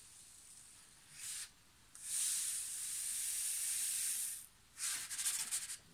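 Chalk-tinted salt poured off a folded sheet of paper into a glass jar: a brief hiss, then a steady hiss of about two seconds, and a quick crackly patter near the end.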